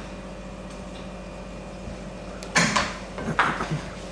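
Steady low hum, then two short clattering knocks of kitchen things being handled, a little under a second apart, in the second half.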